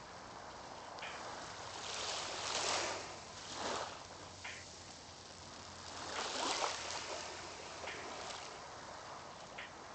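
Small waves washing up and drawing back over a coarse-sand beach, with one wash about two seconds in and another about six seconds in. A few faint short ticks come in between.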